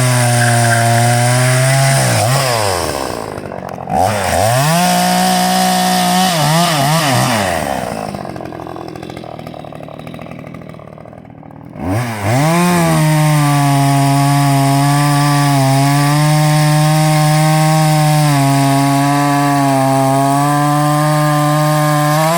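Vintage Salem Master two-stroke chainsaw running at high revs, dropping back to idle twice and revving up again each time. The second run is held at full speed for about ten seconds before the throttle is released at the end.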